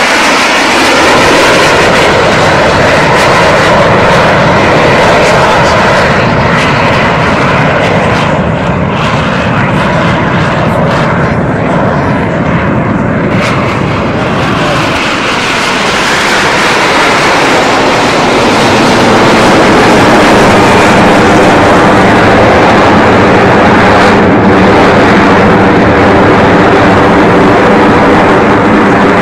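Aermacchi MB-339 jet trainers flying over, several single-turbojet engines loud and continuous, with the engine pitch gliding as aircraft pass.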